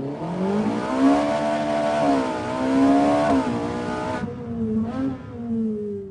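Ferrari 458 Italia's V8 engine revving hard and held high for about four seconds, then the throttle closes and the revs drop. There is one short blip about five seconds in, and the revs fall off gradually near the end.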